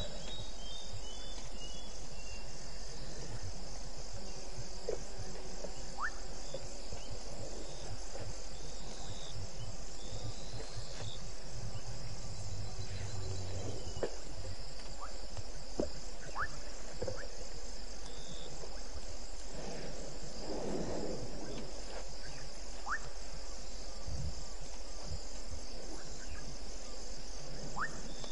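Night chorus of crickets and other insects: a steady, high-pitched pulsing trill, with a few short faint chirps and clicks scattered through it and a low steady hum underneath.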